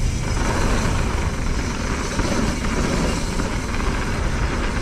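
Mountain bike riding fast down a dirt trail: steady tyre roar on packed earth with heavy wind rumble on the action-camera microphone.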